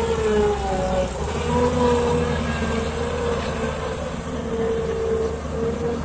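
Tracked hydraulic excavator's diesel engine running under load as it digs soil, a steady low drone with a whine that wavers up and down in pitch as the arm works.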